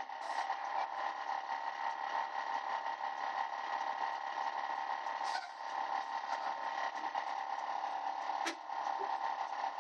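School bus engine running, heard from inside the bus as a steady drone with a constant whine. There is a brief click about five seconds in and another near the end.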